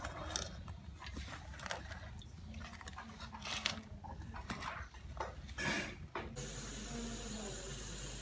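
Hands tossing and squeezing shredded onion, greens and other chopped vegetables in a steel bowl: an irregular crunchy rustling. About six seconds in it cuts abruptly to pakoras deep-frying in hot oil, a steady sizzle.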